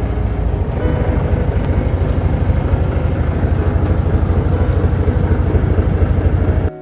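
Small boat's outboard motor running steadily under way, with wind buffeting the microphone; it cuts off abruptly near the end.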